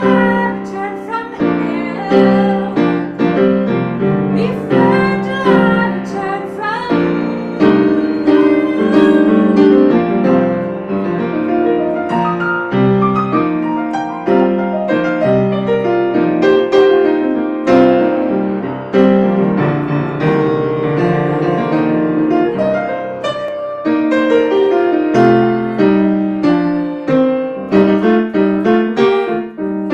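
A grand piano is played in a continuous run of chords and notes. A woman sings over it during the first several seconds.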